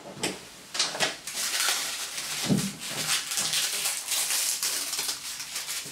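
Protective plastic masking film being peeled back off a bath around the waste hole: a crackly rustling with a few sharper rips near the start.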